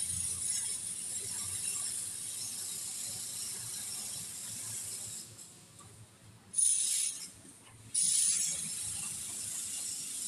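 Stick (arc) welding on an iron folding door, tacking on a steel padlock hasp: a steady crackling sizzle of the arc with a thin high whine. It breaks off about five seconds in, flares briefly about a second later, and strikes again with a sudden start about eight seconds in.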